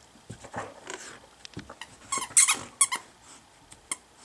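A dog at play with a plush mouse toy: a few short, sharp, high-pitched sounds just past two seconds in, with fainter ones before and after.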